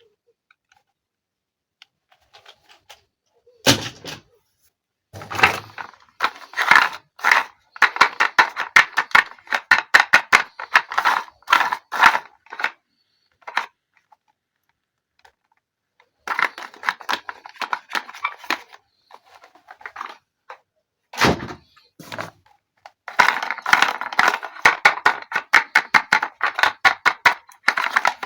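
Plastic toy packaging and plastic toy parts being handled: rapid trains of crackling clicks in bursts, with a few heavier knocks.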